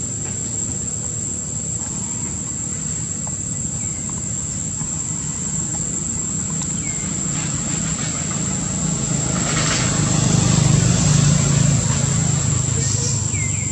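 Low steady rumble of a distant engine, swelling about ten seconds in and easing off near the end, under a thin steady high whine and a few faint chirps.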